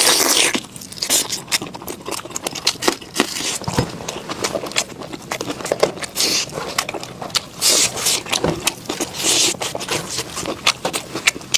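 Close-miked eating of spicy lamb head meat: wet chewing, smacking and sucking with many quick sharp clicks, and a few longer hissing slurps.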